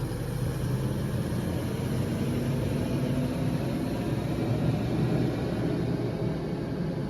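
Steady vehicle running noise: a low engine hum under an even hiss.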